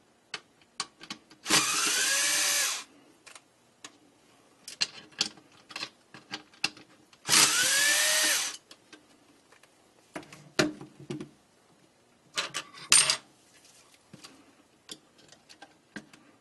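Cordless electric screwdriver running in two short bursts, each about a second and a half long, with a whine that rises and then falls as it backs out the wiper-blade screws of a laser toner cartridge. Light plastic clicks and taps from handling the cartridge come in between, with a brief louder burst about two-thirds of the way through.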